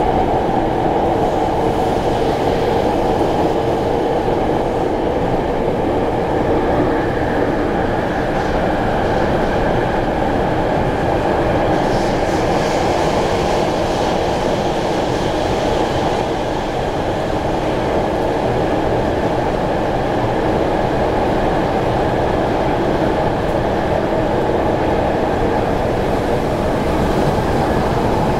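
Running noise of an Itochu-Kinki Sharyo-Kawasaki SP1900 EMU (IGBT-VVVF) motor car travelling at speed: a steady, loud rumble of wheels on rail with a faint steady hum, heard from inside the car.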